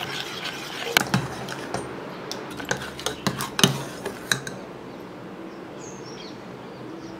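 Steel spoon stirring thickening ragi porridge in a stainless steel pot, with scattered clinks of the spoon against the pot through the first four seconds or so, then quieter stirring.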